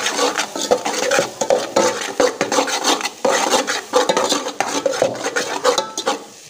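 Metal spoon stirring and scraping a thick onion-tomato masala around a metal cooking pot, with rapid repeated scrapes and clinks against the pot's sides and bottom.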